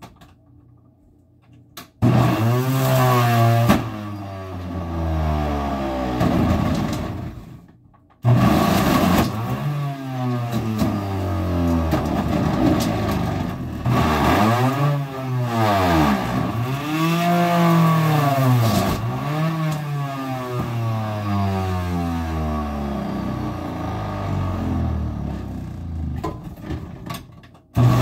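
Electric juicer motor running while lemon halves are pushed through it, its pitch sagging each time one is forced in and then climbing back. It starts about two seconds in, stops briefly near eight seconds, then starts again and runs until just before the end.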